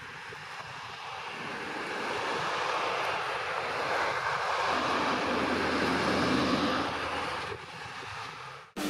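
Road traffic driving past close by, cars and an ambulance, with tyre and engine noise swelling over several seconds and then fading.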